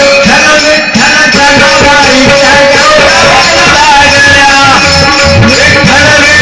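Music: a melodious sung line with held, gliding notes over instrumental accompaniment with a steady drone and a rhythmic beat.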